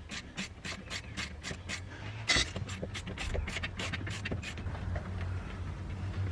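A hand ratchet clicking at about four clicks a second as a 5 mm socket backs out a fuel-line hose clamp screw. The clicking stops about four and a half seconds in, over a steady low hum.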